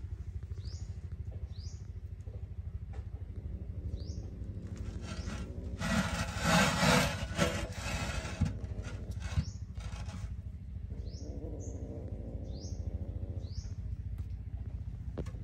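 Outdoor ambience: a steady low motor hum with a fast throb, under a small bird's short rising chirps repeating every second or so. About six seconds in, a loud rushing noise lasts about two and a half seconds.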